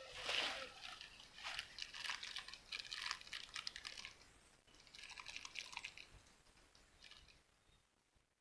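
Water splashing and dripping in clusters of short crackly clicks, fading out near the end.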